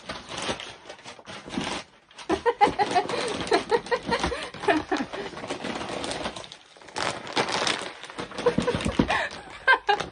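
Crinkly plastic snack bags of Snack Factory Pretzel Crisps rustling and crackling as they are handled and held up, with brief pauses about two seconds in and past the middle.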